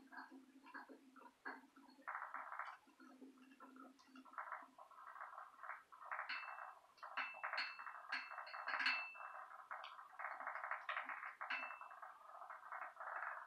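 A hexbug toy's tiny vibration motor buzzing in starts and stops as it skitters about, with a run of short clicks and pings in the middle as it knocks against things.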